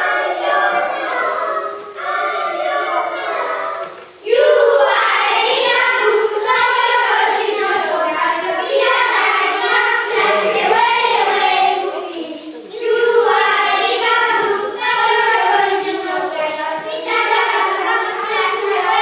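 A group of children singing together in chorus. The singing breaks off briefly about four seconds in and comes back louder.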